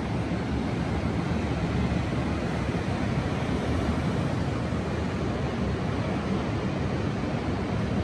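Steady rushing noise with no clear tone or rhythm, heaviest in the low end.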